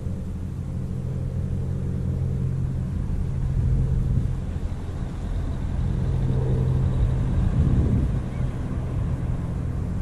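Low, steady engine rumble, getting louder around the middle and easing off toward the end, with wind buffeting the microphone.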